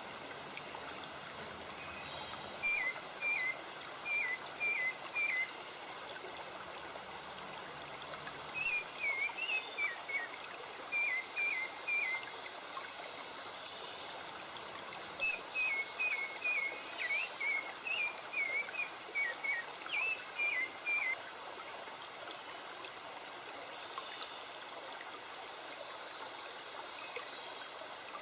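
A forest stream trickling steadily, with a songbird singing three phrases of quick, short, repeated notes over it.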